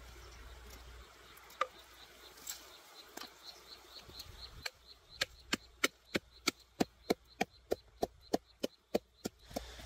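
Wooden pestle pounding red chilies and garlic in a clay mortar. A few single knocks come first, then halfway through a steady run of sharp knocks, about three a second, which stops shortly before the end.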